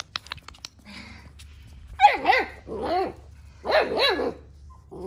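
Central Asian Shepherd puppy yapping: several high barks that rise and fall in pitch, in three or four quick groups starting about two seconds in, after a few light clicks.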